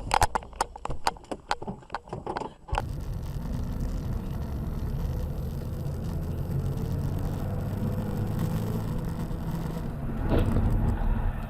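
Car driving: a steady low rumble of engine and road noise. In the first couple of seconds there is a rapid, irregular run of clicks and knocks, and about ten seconds in there is a brief louder swell.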